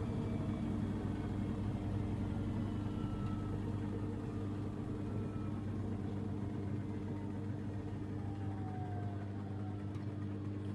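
Samsung Ecobubble washing machine with digital inverter motor, spinning down at the end of its final spin: a steady hum with a faint whine that falls in pitch as the drum slows.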